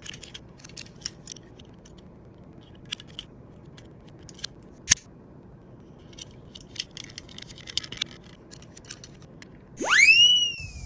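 Scattered light clicks and ticks of die-cast toy cars rolling and knocking along a slope, with one sharper tap about five seconds in. Near the end comes a quick whistle-like swoop that rises steeply and dips a little, from a library sound effect.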